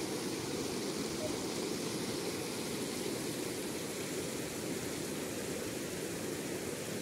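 Muddy floodwater of a wadi in spate rushing over its stony bed: a steady, even rushing.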